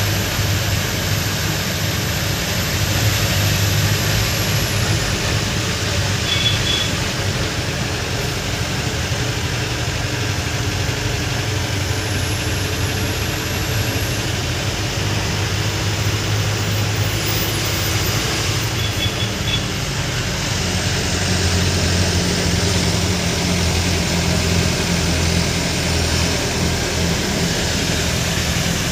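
Truck diesel engine running steadily under way, heard from inside the cab, with road and cab rattle noise and a thin high whine that dips and returns a few times.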